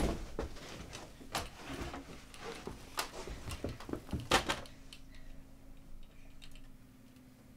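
A backpack dropped onto a carpeted floor with a sharp thump, followed by rustling and scattered clicks and knocks as it and its contents are handled. From about five seconds in, only a faint steady room hum remains.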